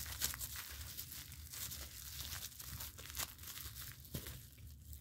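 Plastic bag being handled and pulled at to free a vinyl figure from it: short irregular crinkles that thin out about four seconds in.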